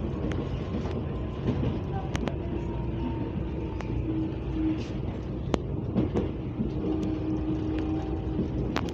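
Running noise of a CPTM Series 7500 electric train heard from inside the car: a steady low rumble of wheels on track, faint whining tones that come and go, and sharp clicks at irregular moments.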